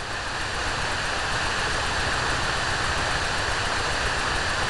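Steady rushing noise of water running down a spillway, swelling slightly in the first second and then holding even.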